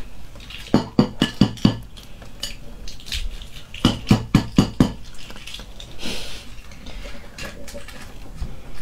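Eggshells tapped against a ceramic plate to crack them: two runs of about five quick taps, some three seconds apart, followed by the faint crackle of shell being peeled off.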